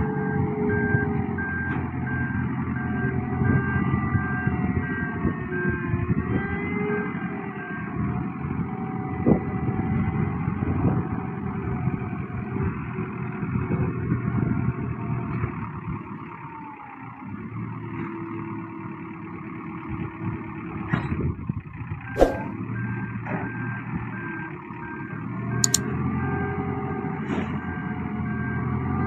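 Diesel engine of a Dieci Pegasus rotating telehandler running under load as it works its boom, with its motion alarm beeping in quick, evenly spaced beeps for the first several seconds and again near the end. A few sharp knocks come near the end.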